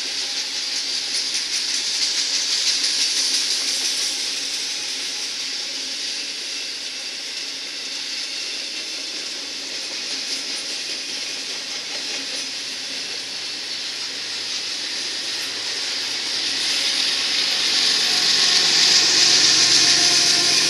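A freight train of enclosed autorack cars rolling past, a steady hissing rush of wheels on rail that fades somewhat, then swells again near the end.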